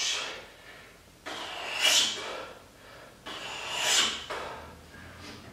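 A man breathing deeply and audibly, three long breaths about two seconds apart, as he catches his breath between heavy curl singles.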